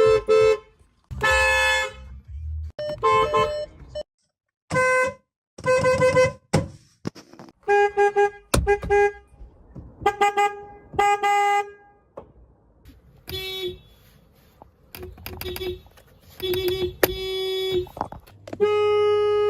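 A run of different car horns sounding one after another, well over a dozen. Most are short toots and a few are held for about a second, each with its own pitch, and a low steady hum runs under some of them.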